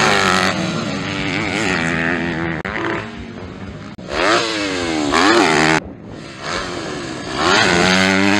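Motocross bike engines revving hard, their pitch climbing and dropping again and again as the riders open and close the throttle and shift through the gears. The sound changes abruptly several times as one bike's pass is cut to the next.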